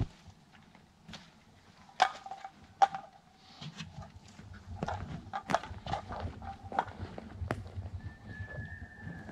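Footsteps on wet, gravelly ground mixed with scattered sharp cracks and knocks, the loudest about two seconds in. A faint, thin, steady whistle comes in near the end.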